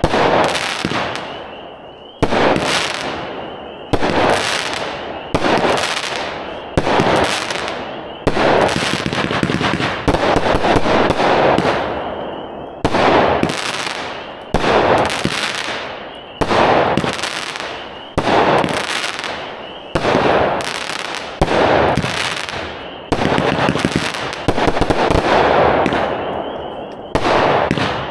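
Black Cat 'Gunfighters from Hell' 49-shot, 500 g consumer firework cake firing at about one shot every one and a half to two seconds. Each shot is a sharp bang followed by a fading hiss and crackle.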